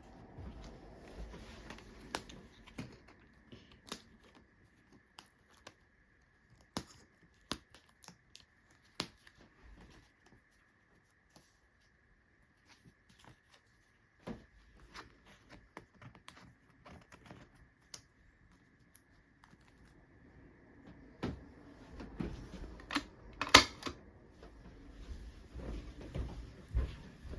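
Scattered clicks and taps of small objects being handled, over a faint steady high-pitched tone. The handling grows busier about 21 seconds in, with its loudest clatter a couple of seconds later.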